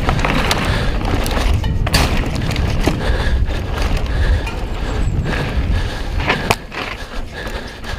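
Mountain bike rolling fast down a dirt trail: loud tyre rumble and rattling of the bike, with wind buffeting the microphone. There is a sharp clack about six and a half seconds in, after which the rumble gets quieter as the bike slows.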